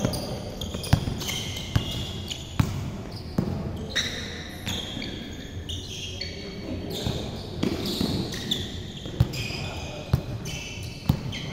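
A basketball bouncing on a hard court floor, dribbled with sharp thumps about once a second at first and more irregularly later, with players' sneakers squeaking in short high chirps.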